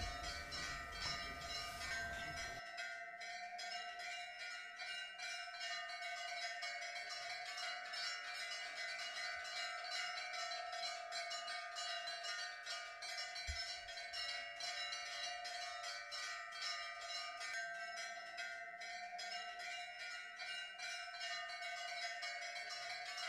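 Temple bells ringing on and on in rapid clanging strokes, with many overlapping bell tones sounding together.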